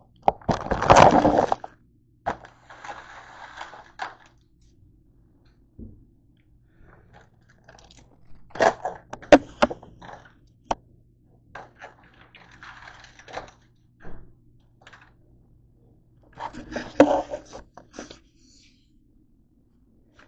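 Plastic wrapper of a pack of Oreo cookies crinkling and rustling as it is handled and opened, in several bursts with sharp clicks and knocks between them.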